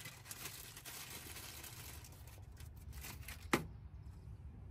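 Rustling and crinkling of packaging with small clicks as hose clamps are handled and taken out, ending in one sharp click about three and a half seconds in.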